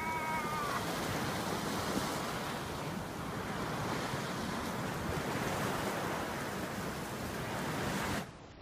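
Sea surf washing over a rocky shore, with wind buffeting the microphone: a steady rushing noise. A brief high multi-toned sound is heard in the first second, and the level drops suddenly near the end.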